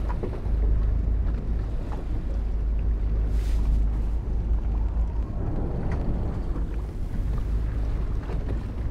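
Wind rumbling on the microphone over the steady noise of a fishing boat at sea, with a brief hiss about three and a half seconds in.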